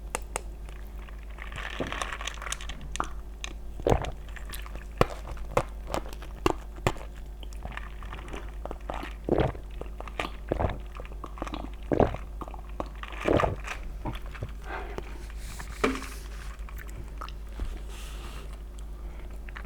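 Close-miked eating: a person biting and chewing food, with irregular crunchy bites and mouth clicks.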